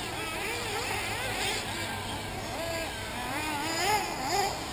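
Several 1/8-scale nitro RC buggy engines racing, their high-pitched whine rising and falling over and over as the cars rev and lift through the corners. The buzz is loudest just before the end.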